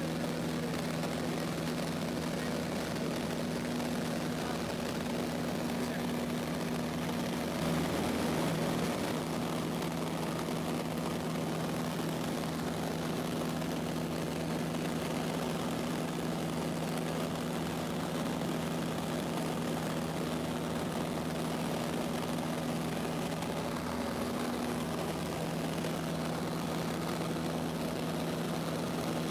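Cessna 152's four-cylinder Lycoming engine and propeller droning steadily in cruise, heard from inside the cabin, with a slight wobble in pitch about eight seconds in.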